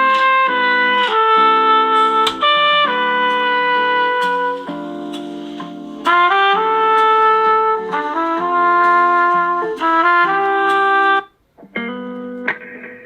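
A Samsung Galaxy Note 20 Ultra ringtone playing: a melody of held notes that stops suddenly near the end. After a brief gap, another ringtone begins.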